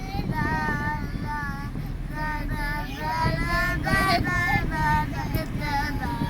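Children singing a song together in high voices, note after note without a break, over a low background rumble.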